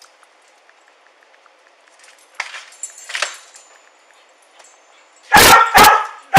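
Search dog barking three times in quick succession, loud, starting about five seconds in, an alert at the spot under the stairs. Before the barks, faint clinking of metal, like keys or tags.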